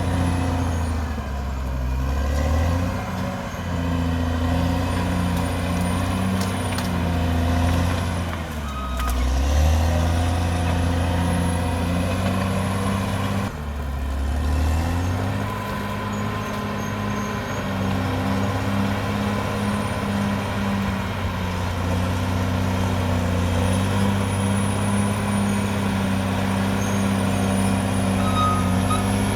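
Caterpillar D6R XL bulldozer's diesel engine working steadily under load. Its pitch dips briefly twice as the engine lugs and recovers, and a faint high whine rises and falls over it. Near the end a reversing alarm gives a couple of beeps.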